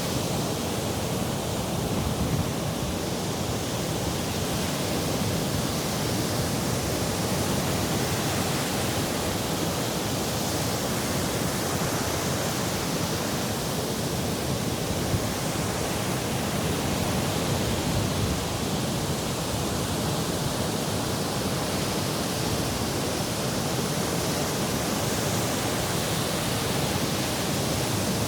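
Sea surf: a steady, even rush of waves, with slow swells every ten seconds or so.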